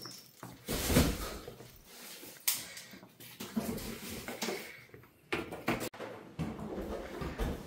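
Irregular knocks, bumps and scraping of objects being handled, the loudest thump about a second in.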